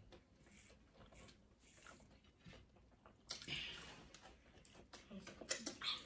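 Quiet eating and drinking at a table: faint chewing of fried chicken tenders with small mouth clicks, a breathy rush of noise about three seconds in, and louder short mouth sounds near the end.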